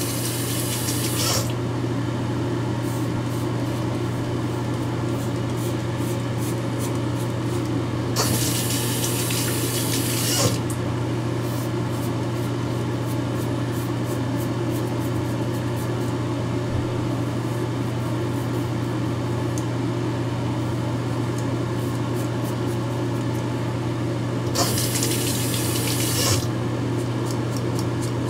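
Gillette ProGlide Chill five-blade cartridge razor scraping through stubble in short strokes, over a steady low hum. Three times, at the start, about 8 seconds in and near the end, water runs for a couple of seconds as the razor is rinsed under hot water.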